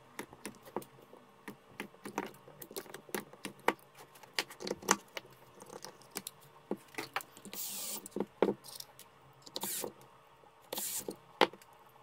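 Irregular clicks, clinks and small knocks of battery-pack parts being handled during reassembly, with two short rasping bursts, one about eight seconds in and one near the end.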